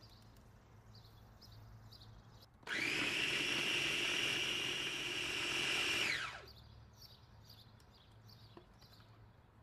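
Electric food chopper's motor running steadily for about three and a half seconds as it blends an oil, lemon and spice marinade, then winding down as it is switched off.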